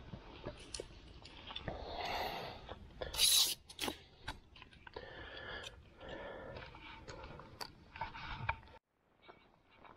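Handling noise as a landing net and fishing gear are picked up from bankside grass: rustling with scattered sharp clicks and crackles, and a short loud scrape about three seconds in. The sound cuts off abruptly near the end.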